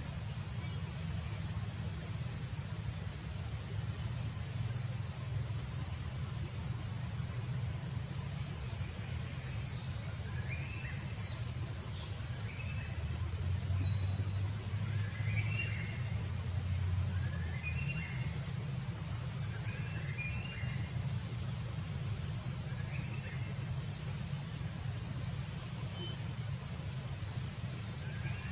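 Outdoor ambience: a steady high insect drone over a low rumble, with short chirping calls repeating every second or two from about a third of the way in.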